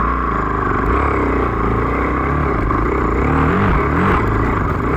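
KTM dirt bike engine running close to the microphone, the throttle opening and closing so the revs rise and fall several times in the second half.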